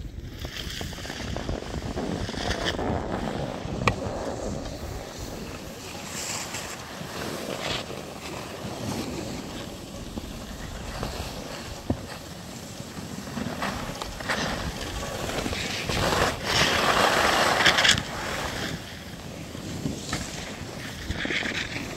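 Wind rushing over the microphone and edges scraping and hissing over packed snow while riding down a groomed slope. The loudest scrape comes about sixteen seconds in and lasts about two seconds.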